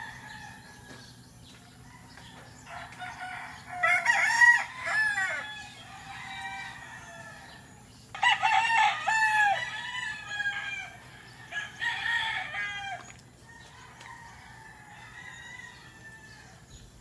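Several roosters crowing, one crow after another with some overlapping, loudest about four seconds in and again around eight to ten seconds in, with fainter crows between.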